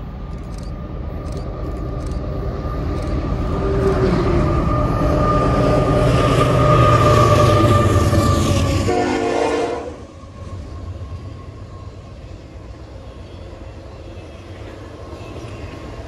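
Canadian Pacific freight train's lead GE AC4400CW diesel locomotives sounding the horn as they approach at speed, the horn and engine sound growing louder until the locomotives pass about nine seconds in, where the horn's pitch drops and it stops. After that comes the steady rumble and clatter of double-stack container cars rolling by.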